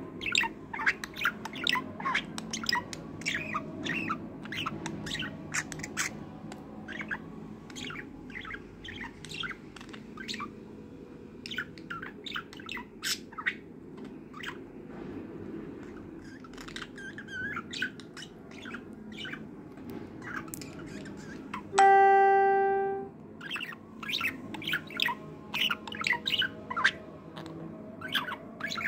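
Budgerigar chirping and chattering in quick, short notes throughout. About two-thirds of the way in, a single loud ringing tone sounds for about a second and fades out.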